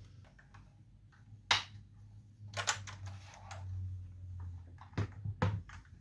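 Irregular, scattered clicks and clacks from handling a mechanical keyboard: a few sharp keystrokes or keycap taps, several seconds apart, with a steady low hum underneath.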